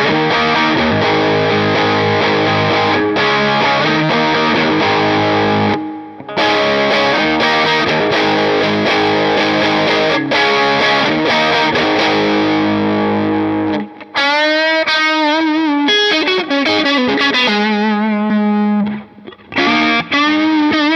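Electric guitar played through a digital amp modeler's overdriven Dumble-style amp channel: chords ring for the first dozen or so seconds, with a short break about six seconds in. Then come single-note lead lines with string bends and vibrato.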